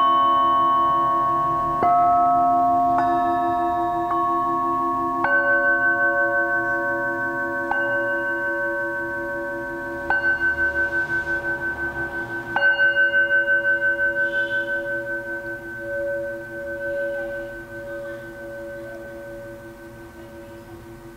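Metal singing bowls struck one after another with a mallet, about eight strikes in the first thirteen seconds. Their tones overlap and ring on with a slow pulsing waver, then fade away over the last seconds.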